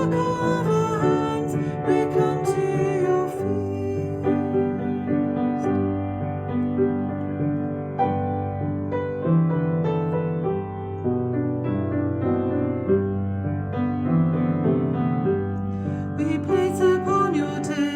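Slow hymn accompaniment led by piano, holding sustained chords, with a sung line in the first few seconds and again near the end.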